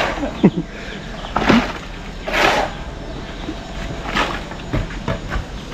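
Shovels scraping and turning a hand mix of wet concrete on the ground, in short rough strokes about one every second or so.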